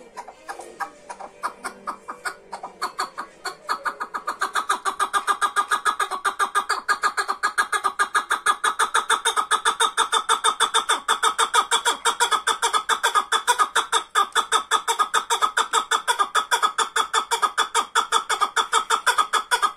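Chukar partridge calling: a long run of repeated clucking notes that starts spaced and quieter, then about four seconds in turns louder and faster into a steady rapid series of several notes a second.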